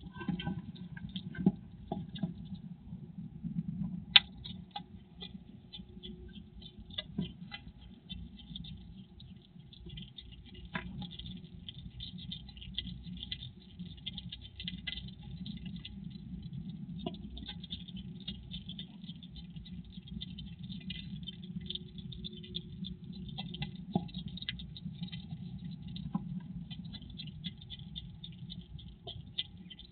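Hedgehog chewing and crunching peanuts in a wooden feeding box. It is a rapid crackle of small crunches that thickens about ten seconds in, with a few louder knocks, over a steady low hum.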